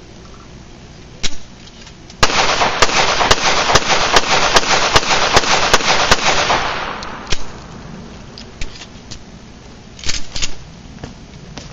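Springfield XDm .45 pistol: a single shot about a second in, then about a dozen shots fired in rapid succession over some five seconds, the reports running into one another before dying away.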